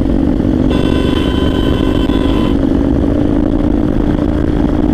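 Motorcycle engine running steadily under the rider. About a second in, a vehicle horn sounds once for about two seconds.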